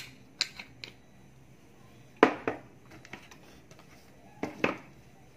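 Clicks and knocks of small items being handled and set down on a workbench, chiefly a small clear jar of soldering-tip cleaner and its screw lid. About eight short knocks, the loudest about two seconds in and a pair near the end.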